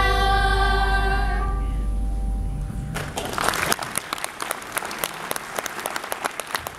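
A children's choir's final held note fades out over the first two seconds. About three seconds in, an audience starts clapping.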